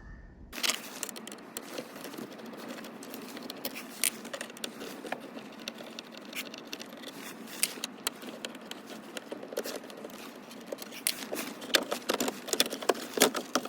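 Hand work in a van dashboard: scattered sharp clicks, rattles and rustling as screws are taken out and the AC/heater control unit is worked loose, busier toward the end.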